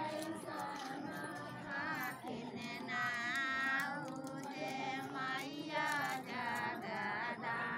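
Women singing together, their voices high and wavering in pitch.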